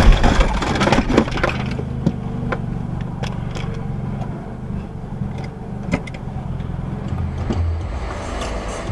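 A car collision picked up by a dash camera: a loud crash right at the start, crunching and crackling of debris for about two seconds, then the steady low rumble of the vehicle with scattered sharp clicks.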